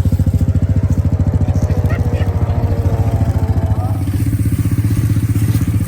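A Honda Rancher 420 ATV's single-cylinder engine running loud under throttle, with a fast, even exhaust pulse held steady throughout.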